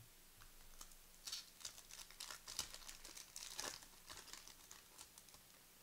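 A trading-card pack's wrapper being torn open and crinkled: a faint run of crackling rustles lasting about three seconds, starting a little over a second in.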